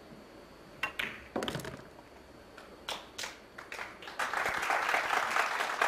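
A pool shot: the cue tip strikes the cue ball and ball clicks on ball about a second in, then a duller knock as the object ball drops in the pocket. Two more knocks follow as the cue ball comes off the cushions, and audience applause starts about four seconds in.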